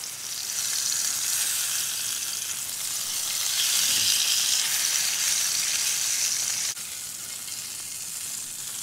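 Ribeye steak sizzling in hot olive oil in a ceramic-coated camping skillet, a steady high hiss. It swells in the middle, then drops suddenly to a lower level about two-thirds of the way through.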